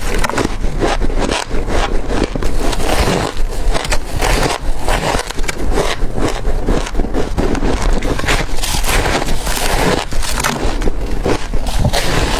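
Hard crushed ice being bitten and crunched between the teeth: a dense, unbroken run of crisp crunches.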